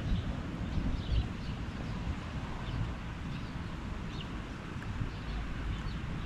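Wind buffeting the microphone in a steady, gusty low rumble ahead of a thunderstorm, with a few faint, short bird chirps now and then.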